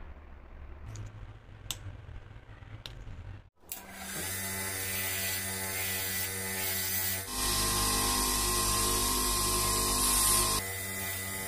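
A few light clicks of a small metal screw being handled, then a bench grinder fitted with a polishing wheel running with a steady hum. For about three seconds the sound grows louder and harsher as the small metal screw is held against the spinning wheel to polish it.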